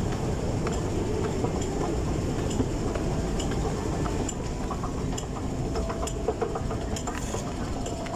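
Moving walkway running with a steady low rumble and scattered light clicks, mixed with footsteps of people walking past.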